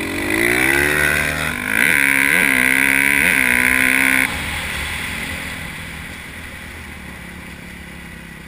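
Dirt bike engine accelerating, its note climbing in pitch over the first second and a half, then several quick throttle blips. About four seconds in the throttle shuts off sharply and the engine drops to a lower note that fades away.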